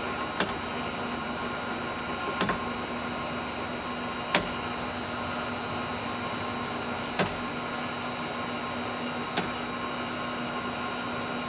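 Vintage Canedy-Otto drill press running steadily, its 3 hp three-phase motor driven by a VFD at 60 Hz, giving a steady hum with a constant whine on top. Five sharp clicks come through the run, about two seconds apart.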